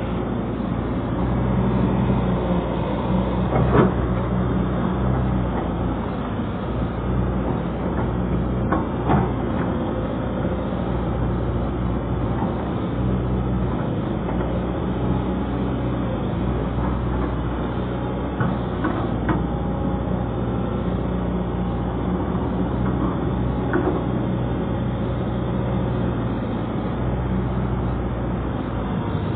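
Pontoon-mounted excavator's diesel engine running steadily, with a few short knocks about 4, 9, 19 and 24 seconds in.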